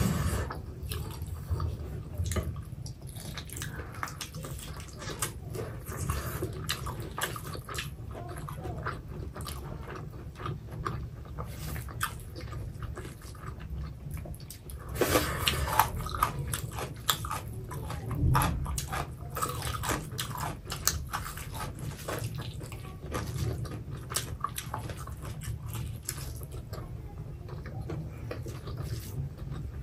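Two people chewing food eaten by hand, with many short wet mouth clicks and smacks that are busiest a little past the middle, over a low steady hum.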